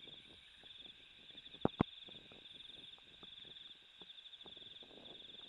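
Steady, high-pitched pulsing trill of a night chorus of calling insects. Two sharp clicks close together just before two seconds in.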